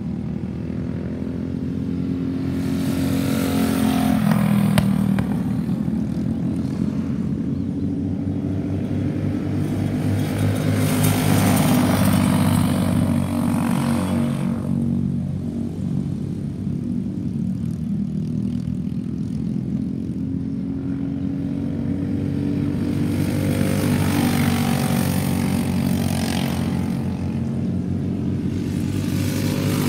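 Racing go-kart engines running flat out on track, a steady buzz that swells and fades as karts pass close, three times, dropping in pitch as one goes by early on.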